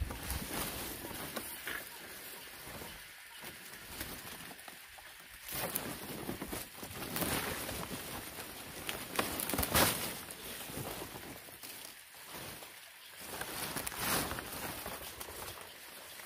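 Stiff fan-palm leaves rustling and crackling as they are handled and stacked, in uneven bursts, loudest about ten seconds in.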